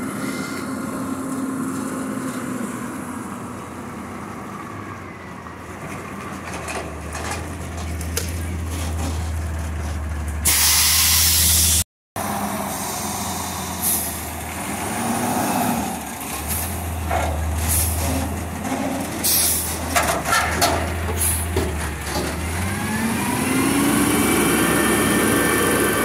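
Peterbilt 320 McNeilus Meridian front-loader garbage truck running, with a loud air-brake hiss a little before halfway. Then come knocks and clangs as the forks engage a steel dumpster. Near the end a rising whine as the engine revs up to drive the hydraulic arms lifting the dumpster overhead.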